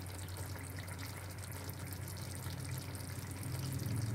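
Chicken ghee roast gravy gently sizzling and bubbling in a steel pan as curry leaves are dropped in, with a steady low hum underneath.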